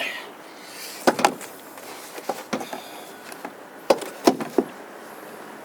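Sharp clicks and knocks of a screwdriver prying at a plastic clip on a car's door panel, in three short clusters, loudest about a second in and again around four seconds in.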